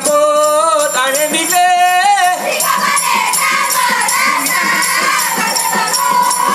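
A single girl's voice sings a long, wavering line. After about two seconds the kneeling row of Saman dancers joins in, chanting together over fast, rhythmic hand claps and body slaps.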